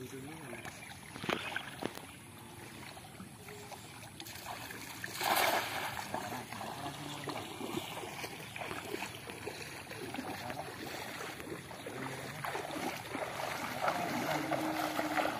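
Shallow muddy floodwater sloshing and trickling around the legs of people wading through it, with one louder rush of noise about five seconds in and the water sounds growing a little louder towards the end.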